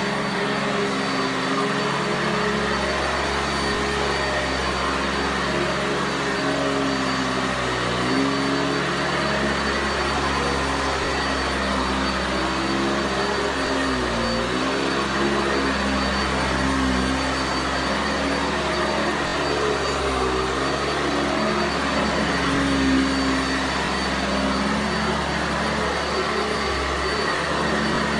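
Sanitaire SC679J commercial upright vacuum cleaner running steadily as it is pushed over carpet. Its motor hum dips briefly in pitch a few times.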